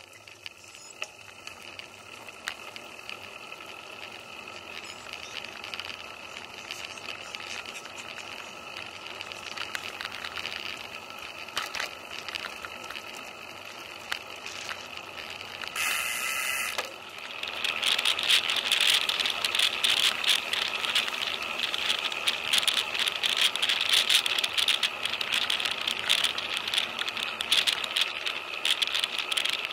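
Road bicycle being ridden, heard through its own mounted camera: a steady rattle of the bike and camera mount with road noise, and a continual clatter of small knocks. The rattling gets louder and busier after a cut about 17 seconds in.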